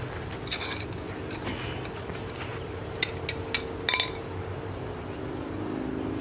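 Steady low mechanical hum, with a few sharp clicks: one about half a second in and a quick cluster between three and four seconds in.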